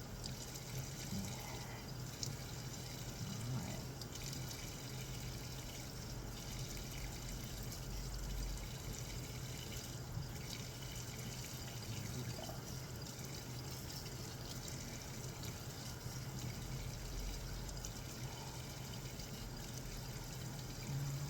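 Sink faucet running steadily, water pouring over a cat's fur to rinse out flea shampoo.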